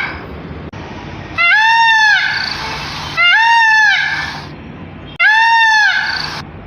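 Peafowl calling: three loud, wailing calls about two seconds apart. Each call arches up and then down in pitch before trailing off.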